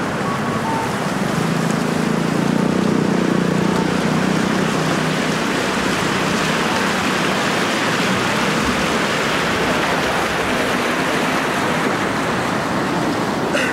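City street ambience: a steady wash of traffic noise, with a passing vehicle's engine drone swelling for a few seconds near the start, and a brief click just before the end.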